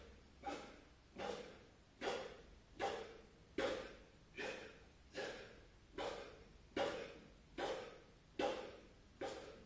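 A man breathing hard and rhythmically while doing push-ups: a short, forceful breath roughly every 0.8 seconds, each one fading quickly.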